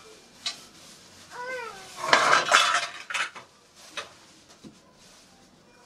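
Steel kitchen pots and bowls clinking and clattering on a counter, loudest in a burst about two seconds in, along with a plastic bag rustling. A cat meows once, briefly, just before the clatter.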